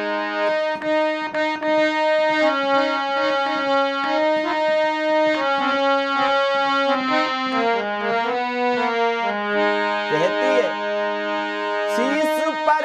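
Harmonium playing a melody of held reed notes as an instrumental interlude between sung lines of a bhajan. A man's singing voice comes back in near the end.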